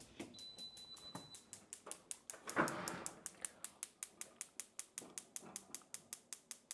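Gas stove's electric spark igniter clicking rapidly and evenly, about five clicks a second. There is a short high beep near the start and a brief louder rush of noise about two and a half seconds in.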